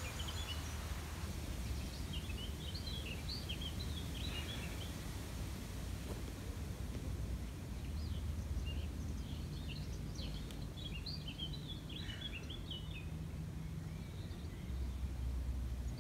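Small songbirds chirping and twittering in two bursts of quick notes, the second about eight seconds in, over a steady low outdoor rumble.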